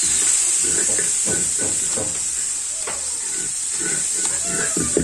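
Onion, garlic and spice masala sizzling in a pan, sticking a little to the bottom, with a steady hiss and repeated strokes of a spoon stirring and scraping it.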